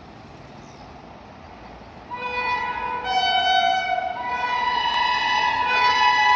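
WAP7 electric locomotive sounding its horn as the train approaches: after two seconds of low background, long blasts of a chord-like horn begin, with a short break about four seconds in, and the sound grows louder.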